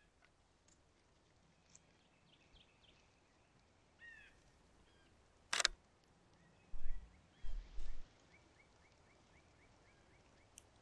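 A single sharp camera shutter click about halfway through, followed by a few dull low thumps. Songbirds chirp throughout, with a rapid trill of repeated notes near the end.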